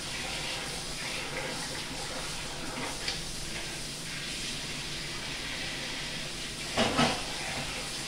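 Steady background hiss with faint rustling of plastic food gloves as hands pick through grated cheese; a brief louder sound about seven seconds in.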